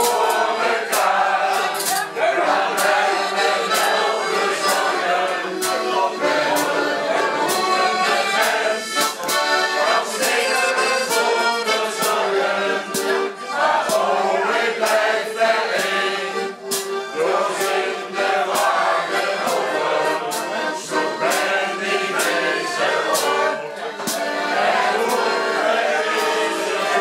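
Piano accordion playing a folk-style tune while a group of people sing along.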